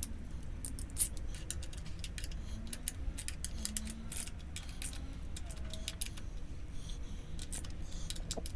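Socket ratchet clicking in short irregular runs while small 10 mm bolts on a Subaru EJ25 thermostat housing are snugged down, with one sharper click about a second in, over a low steady hum.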